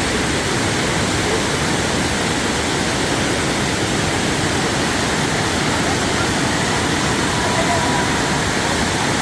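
Steady rushing of water pouring over the Kpatawee waterfall.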